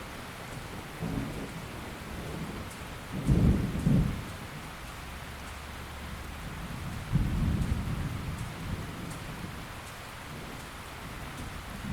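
Steady rain falling, with low rolls of thunder: a faint one about a second in, the loudest about three to four seconds in, and another starting around seven seconds.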